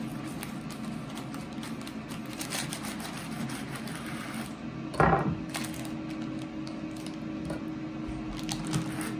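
Serrated bread knife sawing through a soft loaf of homemade white bread, a run of quick scratchy strokes through the crust, then a single thump about five seconds in as the cut finishes. A steady low hum runs underneath.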